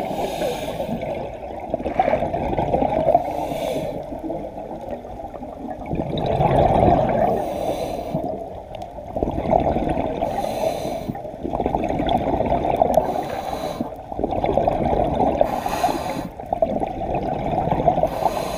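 Scuba diver breathing through a regulator underwater: a short hiss on each inhale and a gurgling rush of exhaled bubbles, repeating about every three seconds.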